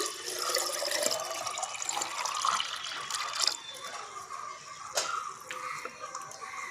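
Running water splashing, heaviest for the first three and a half seconds, then lighter intermittent splashes.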